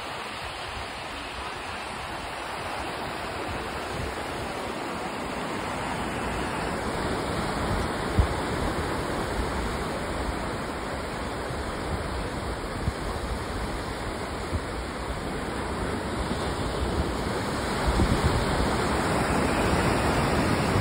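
Small surf breaking and washing up a sand beach and around a wooden jetty: a steady rush of waves that slowly grows louder, with a brief thump about eight seconds in and wind gusting on the microphone near the end.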